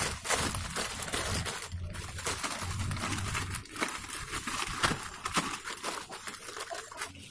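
Thin clear plastic bag crinkling and rustling in quick crackles as it is handled and wrapped around a woody stem.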